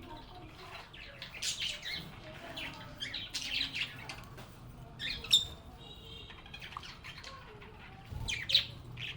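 Lovebirds squawking and chirping in bursts of sharp, high calls, with a short warble in between. The loudest squawk comes a little past halfway, and a faint low hum runs underneath.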